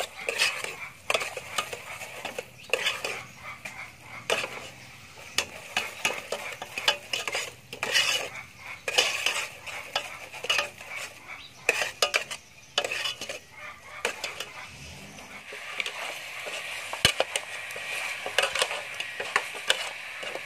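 Metal ladle clinking and scraping against a metal cooking pot in quick, irregular strokes, with a steady hiss in the last few seconds.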